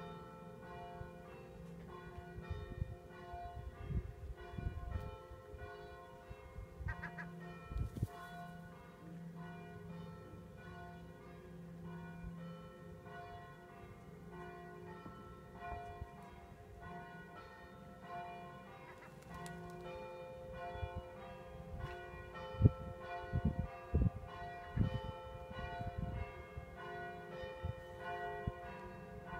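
Church bells ringing on and on, several bells sounding at once in overlapping notes, with occasional low thuds.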